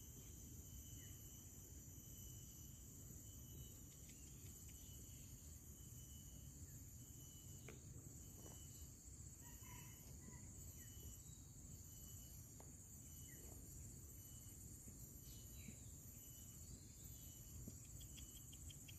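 Faint, steady chirring of insects: an even high drone with a quicker pulsing trill under it, and a few soft clicks scattered through.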